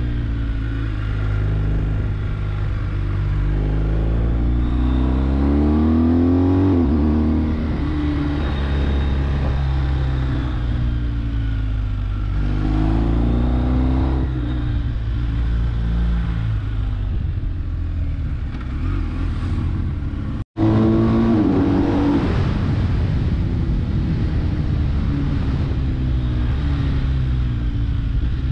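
A BMW R1250GS Adventure's 1254 cc ShiftCam boxer twin, heard from on the bike, revving up and easing off again and again as it climbs through bends in second and third gear. The sound drops out for an instant about twenty seconds in.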